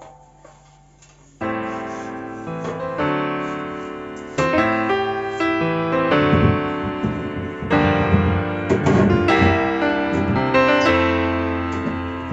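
Background piano music that enters about a second and a half in after a brief lull, playing held chords and notes.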